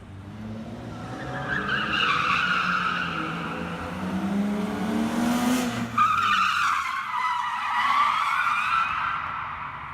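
Drift car sliding with its tyres squealing in a long, wavering squeal. The engine revs up under the squeal and drops away about six seconds in, while the tyres keep squealing.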